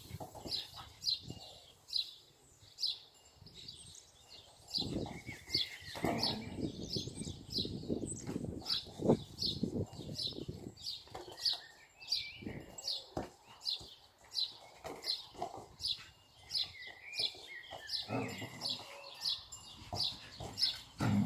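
A small bird chirping over and over, short high chirps about twice a second, with scattered soft knocks and rustling.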